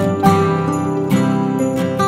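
Background music: plucked strings with a regular beat of note attacks, and jingle bells.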